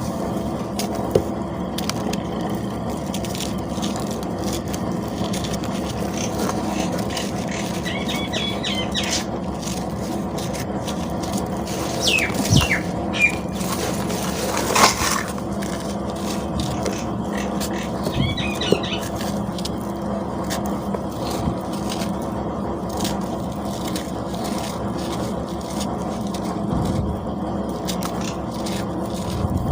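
Dry cement chunks being scraped and crumbled: a gritty, crunchy crackle of many small clicks, over a steady background hum.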